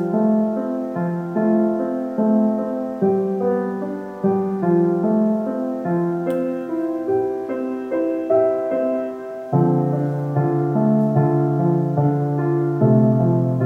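Soft background piano music, single notes and chords following one another at an easy pace. Lower bass notes come in about nine and a half seconds in.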